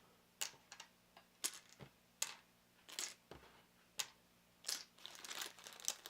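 Board game tokens being handled and set down on a table: a string of short sharp clicks and taps about a second apart, then a run of denser rustling clicks near the end.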